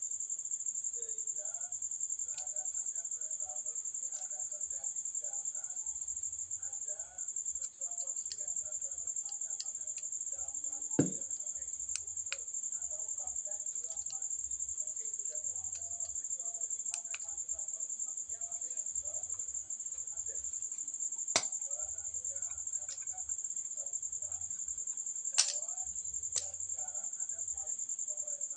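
Steady high-pitched trill of crickets, with a handful of sharp clicks and knocks from handling a plastic-and-metal selfie-stick tripod, the loudest about eleven, twenty-one and twenty-five seconds in.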